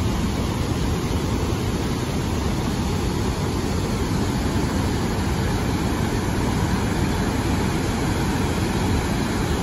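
Water rushing over a wide river weir on the Garonne: a steady, even rush, heavy in the low end.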